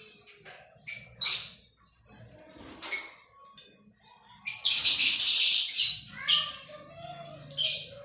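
Indian ringneck parakeets giving several short shrill calls. About halfway through comes a second-long burst of wing flapping.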